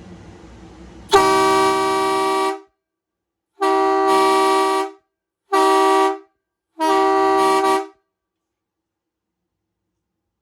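Sparton D-2355 truck horn sounding four steady blasts, a long one of about a second and a half, then three shorter ones. A faint steady low hum is heard for about a second before the first blast.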